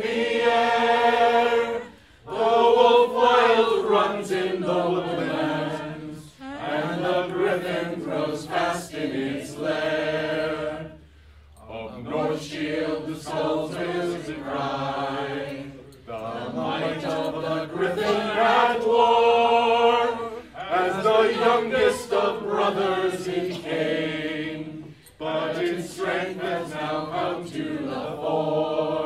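A man singing a cappella, in long held phrases broken by short pauses for breath.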